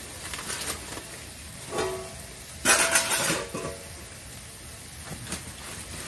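Greens cooking in an aluminium kadai with a steady low sizzle, and a metal spatula scraping the pan twice, about two and three seconds in; the second scrape is the loudest and rings briefly.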